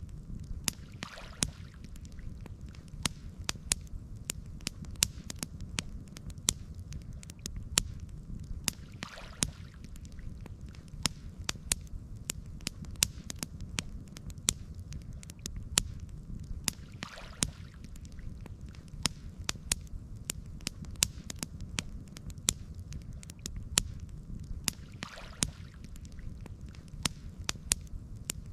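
Campfire crackling, with frequent sharp pops and snaps over a low steady rumble. A soft swish comes back about every eight seconds.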